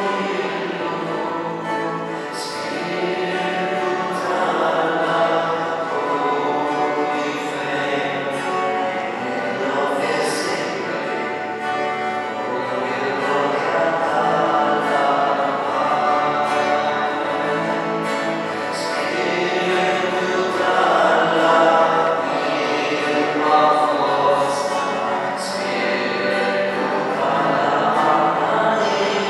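Choir singing a slow hymn in long held notes, several voices in harmony.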